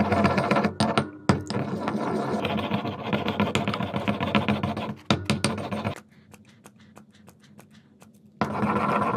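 Stone pestle scraping and stirring round a marble mortar through a wet slime mixture, a dense run of quick scrapes. It stops for about two seconds after the middle, leaving only a few faint clicks, then starts again near the end.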